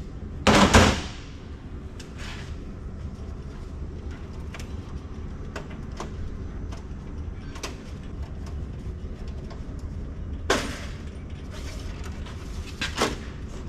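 Circuit boards being handled and slid along the rails of a metal card cage: a few scraping slides, the loudest about half a second in and two more near the end, with scattered small clicks and knocks over a low steady hum.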